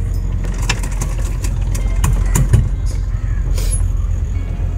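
A houseboat's inboard engine running steadily under way, a continuous low rumble, with a few light clicks over it.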